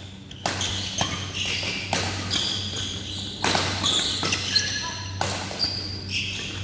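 Badminton doubles rally: about five sharp racket strikes on the shuttlecock at irregular intervals, with shoes squeaking on the court floor between shots and a steady low hum underneath.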